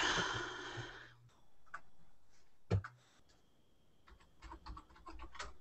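A breath out on the microphone in the first second, then scattered, irregular clicks and keystrokes on a computer keyboard.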